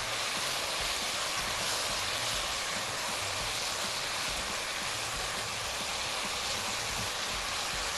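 Rice and barbecue sauce sizzling steadily in a hot pot as they are stirred, a continuous even hiss.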